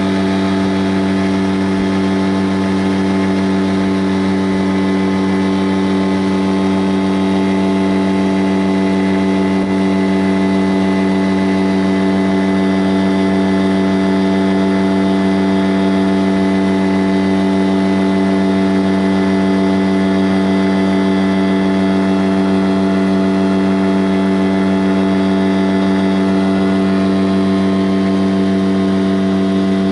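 An engine running at a constant speed, a steady unchanging hum.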